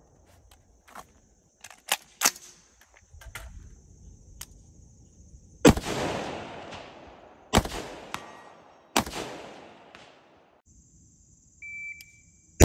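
Recce rifle, a 5.56 mm AR-15-pattern rifle, firing three single shots: the first about halfway in, the next about two seconds later, the last a second and a half after that. Each shot has a long echoing tail. Before the shots there are a few light clicks and knocks.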